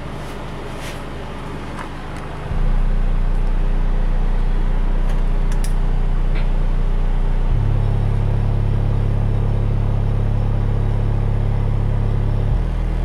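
Steady low bass test tones played through a freshly refoamed Pioneer CS-G9900 loudspeaker, testing the new foam surrounds. The tone steps up louder about two and a half seconds in, then jumps to a new pitch about halfway through and again near the end.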